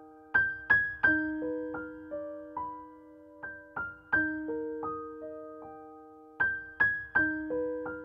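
Slow, gentle background piano music: single notes struck and left ringing over a held low note, in a short arpeggiated phrase that repeats about every three seconds.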